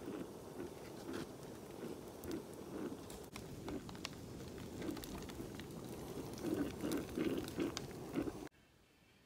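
Stovetop percolator coffee pot perking: water gurgling and bubbling up into the glass knob in irregular spurts, with small sharp pops. It cuts off suddenly near the end.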